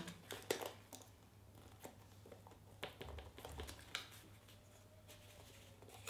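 Faint scattered rustles and small taps of paper being handled and pressed onto a small card box, over a low steady room hum.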